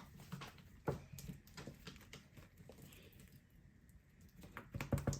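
Beaded slime being worked and pulled apart by hand: faint, scattered crackling clicks, with a clearer click about a second in and a denser, louder run of clicks near the end.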